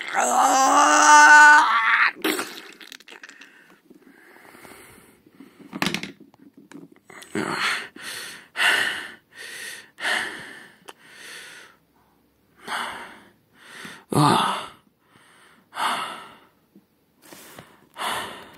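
A person's voice acting out a wounded character: a long strained cry at the start, then a string of loud, ragged gasping breaths, about one a second, as if struggling to breathe.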